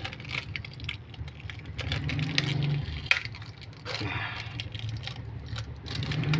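Small sharp clicks and clinks of tools and loose parts being handled on a disassembled smartphone, over a steady low engine-like hum, with a pitched rise in that hum about two seconds in.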